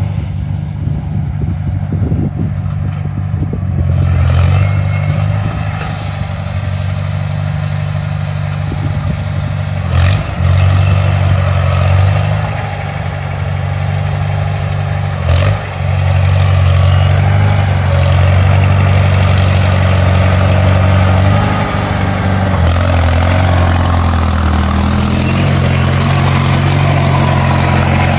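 A vehicle engine running steadily, with three sharp clanks spread through.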